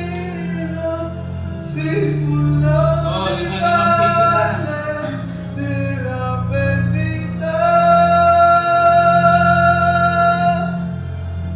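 A man singing into a condenser microphone over a backing track with a steady bass line; about two-thirds of the way through he holds one long note.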